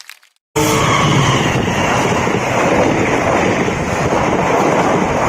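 A train passing close by: a loud, steady noise that comes in suddenly about half a second in, with wind buffeting the microphone.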